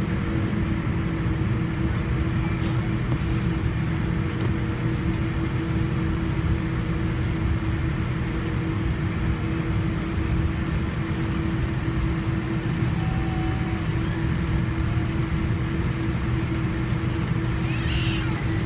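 Steady cabin noise inside a Boeing 787-9 airliner: a continuous low rumble under an even, constant hum, with no change in pitch or level, as the aircraft waits or moves toward takeoff.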